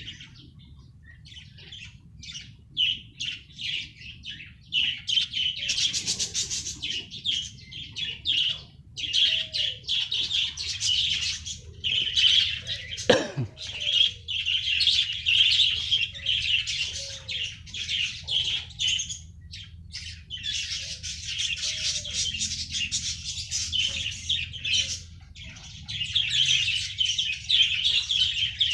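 A colony of budgerigars chattering and chirping together, the many overlapping calls coming in waves with short lulls. About halfway through, one brief sharp sound slides steeply down in pitch.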